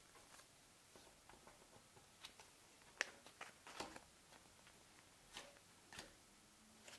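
Near silence with faint, scattered clicks and rustles of game cards and small plastic pieces being handled on a table. The sharpest click comes about three seconds in.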